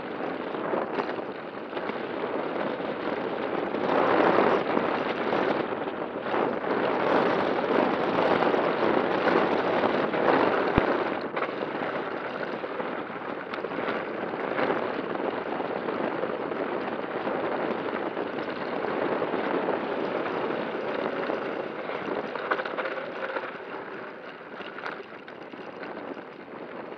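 Scott E-Genius e-mountain bike descending a rough dirt trail: tyres rumbling and crunching over dirt and loose debris, with the bike rattling and knocking over bumps, heard from a camera mounted on the front fork. A sharp knock a little before halfway.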